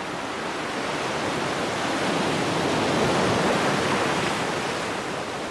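A single ocean wave washing in, swelling to a peak about three seconds in and then easing back as it draws off the shore.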